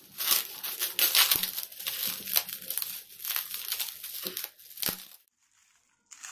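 Plastic bubble wrap crinkling and crackling as it is pulled off a cardboard box, until it cuts off about five seconds in.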